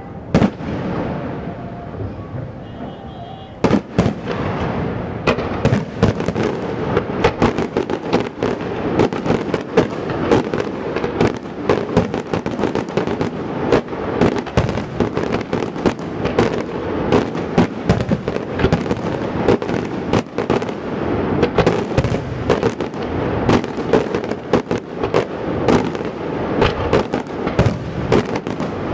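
Fireworks finale: one bang just after the start, then from about four seconds in a dense, unbroken barrage of rapid bangs and crackles.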